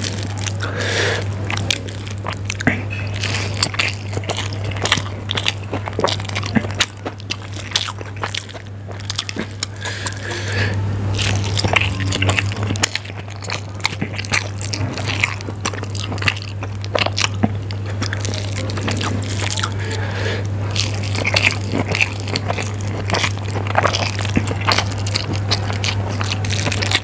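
Close-miked chewing and mouth sounds of a person eating soft instant noodles, with wet squishing as fingers grab handfuls of noodles from the tray. A steady low hum runs underneath.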